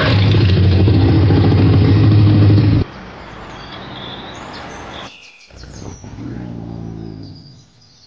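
A loud steady motor drone with a low hum that cuts off suddenly about three seconds in, followed by quieter bird chirps.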